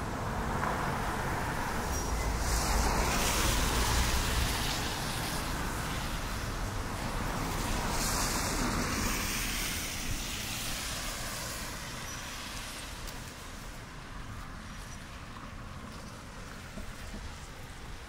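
Two road vehicles pass one after the other on a wet road, loudest about three to four seconds in and again about eight to nine seconds in. After that the sound settles to a quieter, steady traffic hum.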